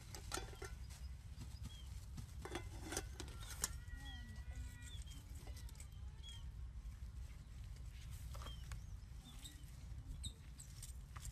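Sharp clicks and clinks of a metal utensil against an aluminium cooking pot and its lid, clustered about two to four seconds in, with short bird chirps scattered throughout over a low steady rumble.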